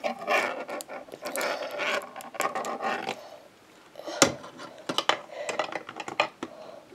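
Plastic Lego pieces being handled: rustling and clattering for the first few seconds, then a string of short sharp clicks and clacks in the second half.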